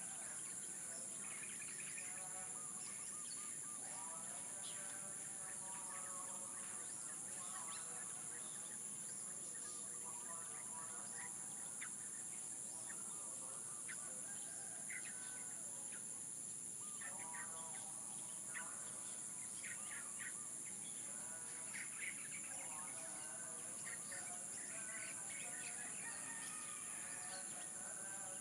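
Roosters crowing and birds chirping over a steady, high-pitched insect drone, with bouts of crowing several times through the stretch.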